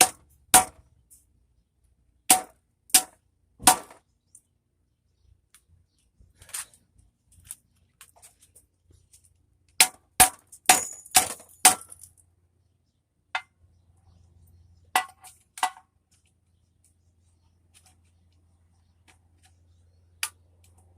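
Sharp metal strikes on a scrap electric motor being knocked apart for its copper: single hits and quick runs of three to five blows, with pauses between them.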